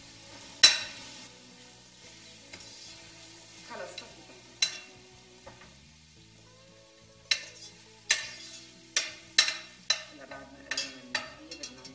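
A metal spoon stirring molokhia frying in ghee in a stainless steel pot, over a sizzle. The spoon clinks sharply against the pot once early, once near the middle, then in a quick irregular run of knocks in the last few seconds.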